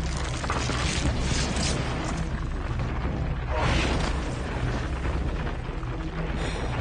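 Dark, ambient horror soundtrack: a steady low rumbling drone under dense noisy textures and booms, with a louder noisy swell near the middle.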